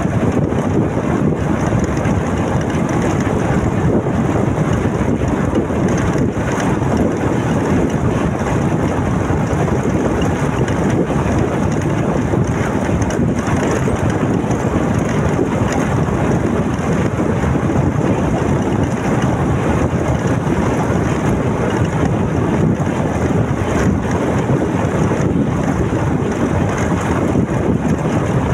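Steady, loud wind noise on the microphone of a moving motorcycle, with road and engine noise beneath it.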